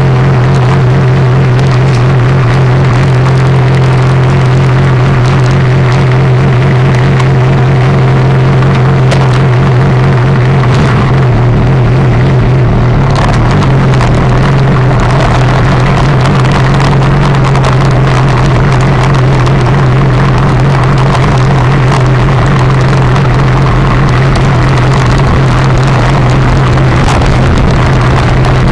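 Sport motorcycle riding at speed on a race track, picked up by a bike-mounted action camera: a loud, steady low drone mixed with noise that does not let up.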